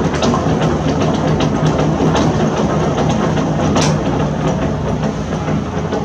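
Heavy construction machine's diesel engine running steadily, with irregular clanks and cracks over it and a sharper crack about four seconds in.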